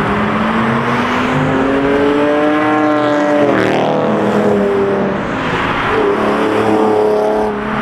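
A car engine revving hard as it accelerates, its note climbing steadily, breaking off about three and a half seconds in, then climbing again.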